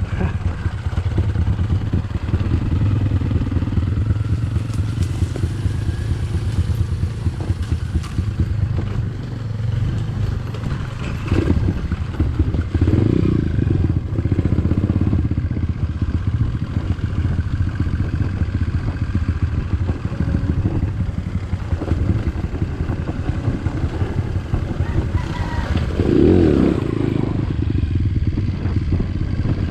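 Dirt bike engine running steadily, with a couple of brief swells in level.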